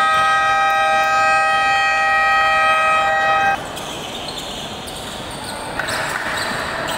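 Basketball scoreboard horn sounding one long steady blare that cuts off suddenly about three and a half seconds in, followed by quieter gym background noise.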